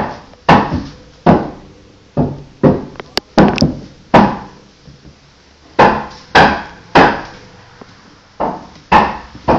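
Footsteps of someone walking through an empty mobile home: about a dozen loud, sharp footfalls, each with a short ring after it, with a pause of a second or so in the middle.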